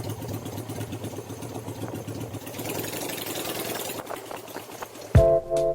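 Honda Shadow bobber's V-twin engine idling. About five seconds in, electronic music with heavy bass hits cuts in and becomes the loudest sound.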